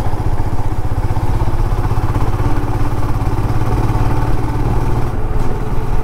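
Motorcycle engine running at a steady cruise while the bike is ridden along a road, heard from the rider's seat.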